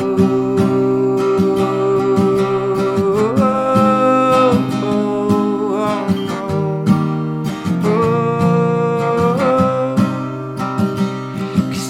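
Acoustic guitar strumming in a live folk song, under a lead melody of long held notes that slide up to a new pitch about three seconds in and again about nine seconds in.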